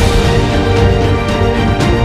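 Background music: sustained chords over a low bass, with an occasional sharp percussion hit.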